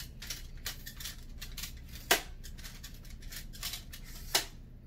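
Twist-lock telescoping pole of a ring light stand being untwisted and slid shorter: a run of light clicks and scrapes, with two sharper clacks about two seconds in and near the end.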